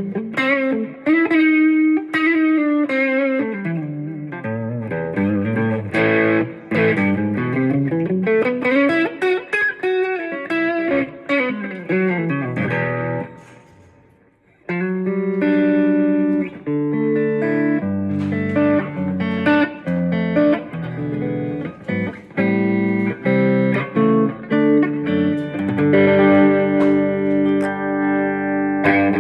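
Guitar played for a tone test: quick rising and falling runs of single notes, fading out about fourteen seconds in, then starting again with held notes and chords.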